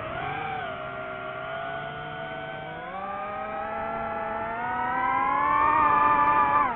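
DJI FPV drone's brushless motors and propellers whining, the pitch dipping briefly, then climbing steadily and getting louder as it is throttled up, before falling off sharply near the end.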